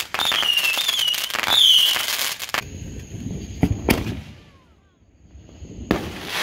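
Consumer fireworks going off: dense crackling with high wavering whistles for the first two and a half seconds, then a firework shooting up with two sharp pops, and an aerial shell bursting with a bang near the end.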